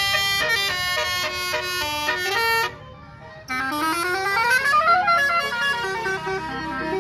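Bus "telolet" basuri horn playing a quick melody of stepped notes. It breaks off for under a second near the middle, then comes back with a long rising slide in pitch and goes on into more notes of the tune.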